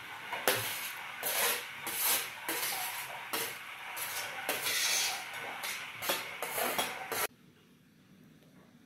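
Metal spoon scraping cooked rice off a metal tray into an aluminium pot: repeated scrapes and clinks of metal on metal that cut off suddenly about seven seconds in.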